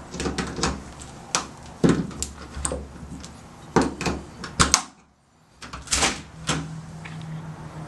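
Screwdriver turning in the keyway of a Kwikset SmartKey deadbolt, used as a key after the lock has been defeated: a string of sharp metallic clicks and clunks from the lock and door. There is a short silent gap about five seconds in, followed by more knocks.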